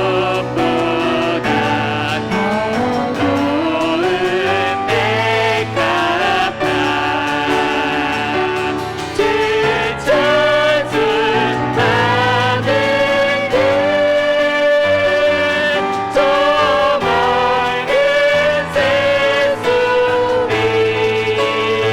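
Church praise team singing a worship song, several voices together over piano accompaniment, with long held notes.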